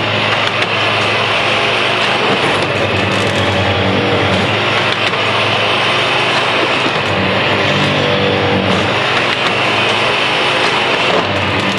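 Electromatic Mk II track tamper at work: its diesel engine and machinery running loudly and steadily, the engine note shifting a few times as it works.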